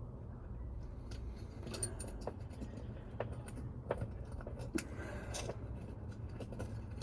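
Scattered light clicks and scrapes of small metal screws and hand tools being handled, over a steady low background rumble.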